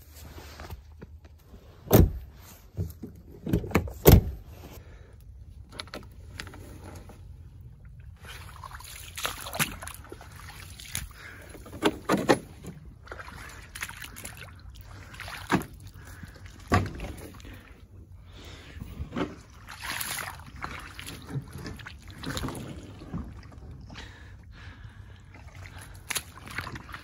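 A truck door slamming shut about two seconds in, then another sharp knock about two seconds later. After that come irregular footsteps and brush rustling as someone pushes through dense marsh vegetation.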